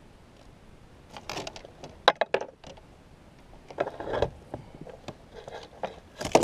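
Scattered clicks, knocks and rustles of a caught walleye and a landing net being handled in a kayak, with a louder clatter right at the end.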